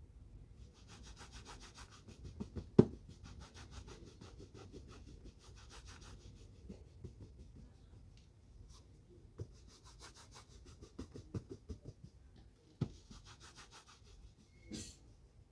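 A shoe being buffed at a shoe shine: runs of quick, even back-and-forth rubbing strokes, with a pause in the middle. A sharp knock about three seconds in is the loudest sound, and another comes near the end.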